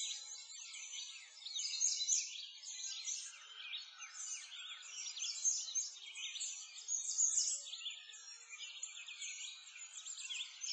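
A dense chorus of small birds chirping and singing, many quick calls overlapping without a break.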